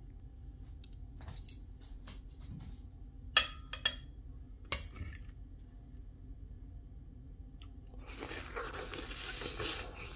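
Metal cutlery clinking sharply on a ceramic plate three times, then about two seconds of a knife scraping and crunching through toasted bread near the end.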